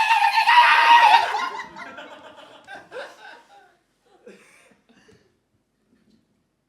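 A burst of loud, high-pitched laughter from a person, held for about a second and a half. It dies away into scattered chuckles by about four seconds in.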